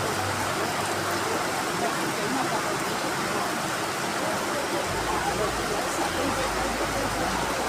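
Heavy rain falling steadily, an even hiss. A low rumble joins about five seconds in.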